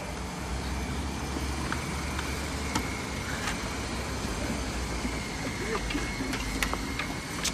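Steady city street traffic noise with a low hum, dotted with a few faint clicks and knocks.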